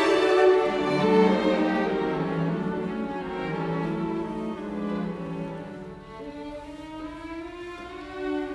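Background music: slow bowed strings, violin with cello-like low notes, playing long held notes that grow softer.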